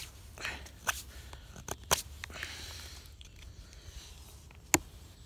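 White-steel carving knife cutting chips from a wooden log: irregular sharp cuts and short scraping strokes, with one sharper cut near the end.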